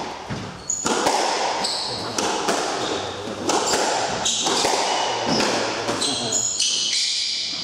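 Squash rally: the ball smacking off rackets and the court walls again and again, with short high squeaks of shoes on the hardwood floor, ringing in the enclosed court.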